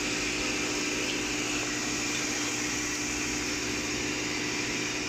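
Napkin tissue paper folding machine running steadily: an even mechanical whir with a constant low hum.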